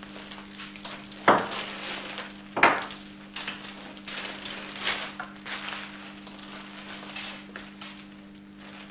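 Kit parts and packaging being handled and set down on a table: a string of clicks, light knocks and clinks, two sharper knocks within the first three seconds, over a steady low hum.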